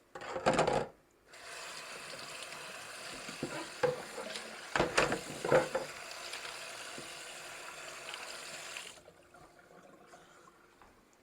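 Kitchen handling sounds: a short loud rustle or clatter at the start, then a steady hiss that starts about a second in and cuts off suddenly near the end, with a few sharp knocks of dishes or utensils in the middle.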